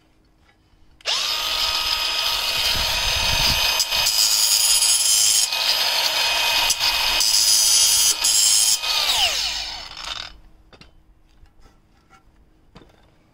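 Cordless angle grinder starting abruptly about a second in and cutting through a stone coping slab: a high motor whine over a gritty cutting rasp. It is switched off after about eight seconds and winds down with a falling whine.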